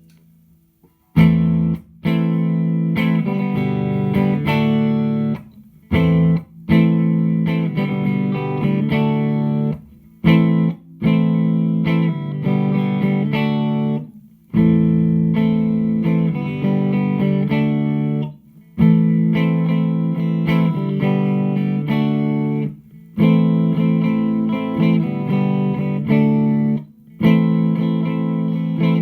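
Electric guitar played through a Hughes & Kettner Attax Metroverb 50-watt transistor combo amp. Chords are strummed and left to ring for about three to four seconds at a time, with short breaks between them.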